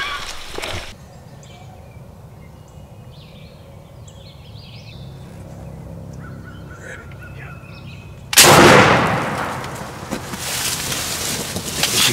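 A single shotgun blast about eight seconds in, sudden and the loudest thing here, its report fading over a second or so. Before it, faint chirping bird calls over quiet background.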